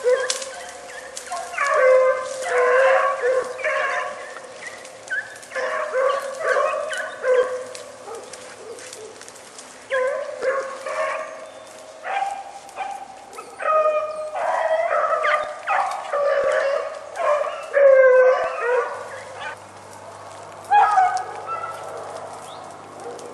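Several dogs barking and yelping in repeated bouts, their calls sometimes overlapping at different pitches: hunting dogs giving voice during a rabbit hunt.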